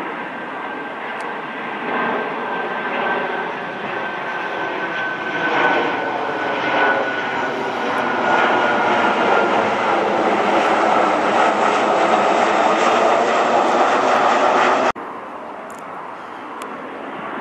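Southwest Airlines Boeing 737 jetliner on final approach passing low overhead, its twin turbofan engines growing louder as it nears, with a high fan whine slowly falling in pitch. Near the end the sound cuts off abruptly and gives way to the quieter engine noise of another approaching jet.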